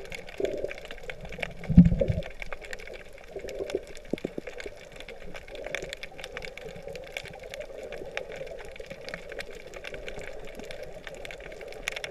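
Underwater sound picked up by a camera moving through the sea: a steady wash of water with many scattered faint clicks, and one low thump about two seconds in.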